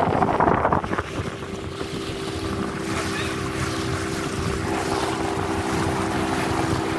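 Motorboat engine running steadily while the boat is under way, a constant hum under the rush of water along the hull and wind on the microphone. A louder rush of noise fills the first second, then the sound settles.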